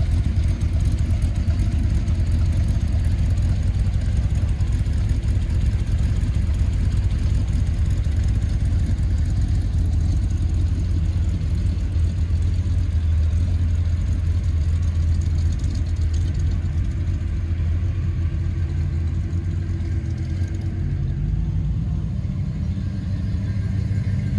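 Car engines running at low speed as a line of classic and muscle cars rolls slowly past, a steady low rumble that shifts in pitch near the end as a different car comes by.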